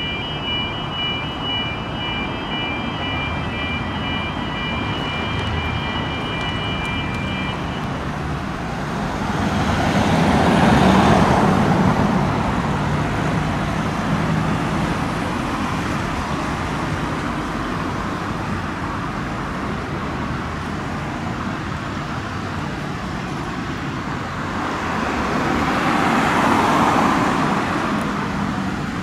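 Street traffic with two vehicles driving past, the louder one about eleven seconds in and another near the end. A steady high-pitched tone sounds for the first several seconds, then stops.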